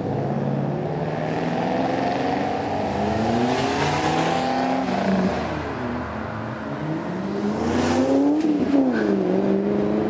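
Car engines accelerating along a road, the engine note climbing and dropping back at gear changes about five and nine seconds in, with a car passing close near the end.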